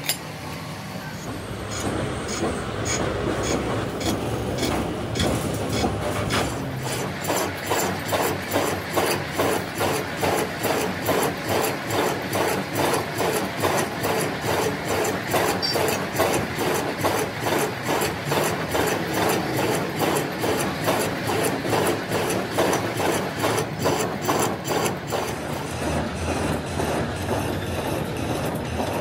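Rhythmic rasping strokes of metalwork, about three a second, settling into an even beat after about six seconds.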